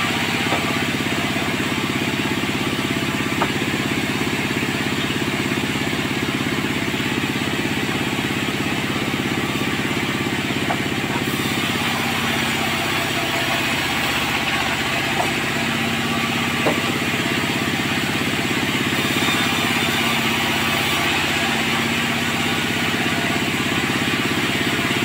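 Sawmill machinery running steadily, a constant engine hum under a broad rushing noise, with a few light knocks.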